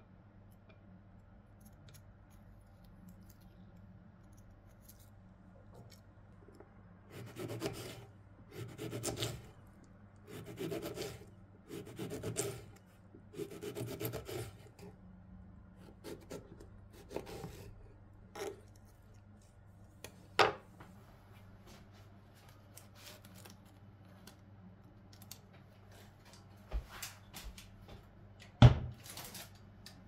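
Knife slicing lemon halves on a wooden cutting board. After a quiet start come five slicing strokes about one and a half seconds apart, then lighter taps and a sharp click, and two sharp knocks near the end, the last of them the loudest.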